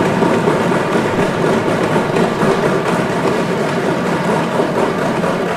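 Legislators applauding in an assembly chamber: a dense, steady clatter of many hands clapping.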